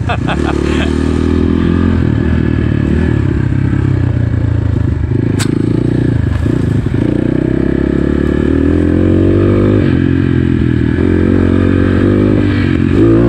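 A GPX FSE 250 E dual-sport dirt bike's 250 cc single-cylinder engine running under way, its revs rising and falling with the throttle: they sag about seven seconds in and climb again a second or two later. One sharp tick comes about five seconds in.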